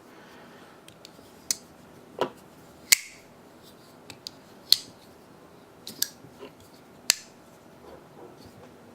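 Burke Rock Star Pro titanium frame-lock folding knife being flicked open and closed, its blade snapping into place in about six sharp clicks spaced a second or so apart, with a few fainter ticks between them.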